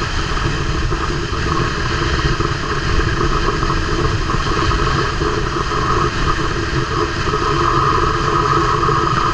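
Tuk-tuk's small engine running steadily while riding along a city road, mixed with wind and road noise.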